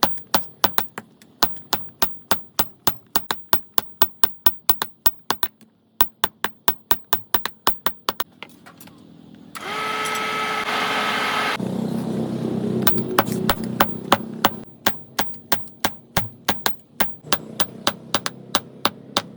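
Rapid hammer blows on metal, about three strikes a second. About halfway through they stop for some five seconds while a power tool's motor runs with a steady whine, then turns lower and rougher, before the hammering starts again.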